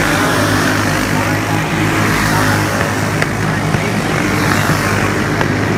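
Several Briggs & Stratton single-cylinder four-stroke racing kart engines running together at speed, a steady overlapping drone.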